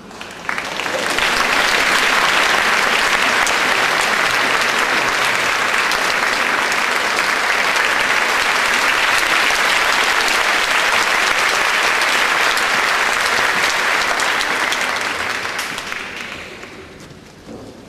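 Concert-hall audience applauding to greet the conductor's entrance, swelling up within the first two seconds, holding steady, then dying away over the last few seconds.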